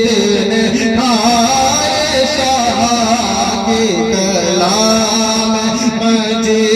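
Devotional naat singing: a male voice in a long wordless melodic run with gliding ornaments over a steady held drone.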